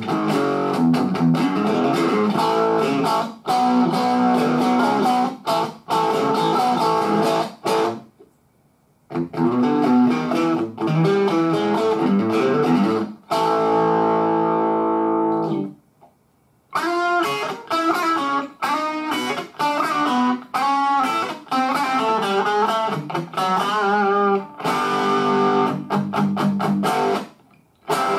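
Distorted electric guitar played through a VOX MV50-AC Nutube amp head into a VOX BC108 cabinet with a single 8-inch speaker. It plays crunchy strummed chords and quick chopped riffs with a few short pauses and one held chord about halfway. The distortion is crisp and tight, a little short of volume and low-end punch from the small 8-inch speaker.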